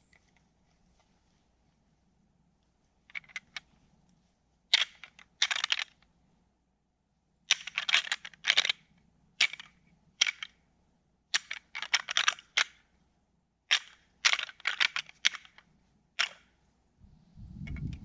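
Rattling antlers clacked and ground together in irregular bursts of sharp clicks, imitating two bucks sparring to draw in a buck. A few light clicks come first, then louder, quicker bursts that stop a little before the end.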